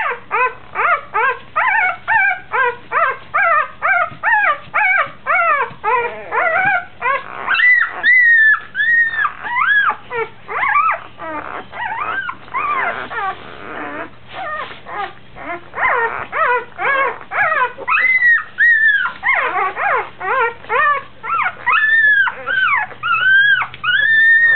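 Newborn puppy crying: quick short squeaks about three a second, then from about seven seconds in, longer rising-and-falling wails. It is a hungry pup that cannot find a teat to nurse.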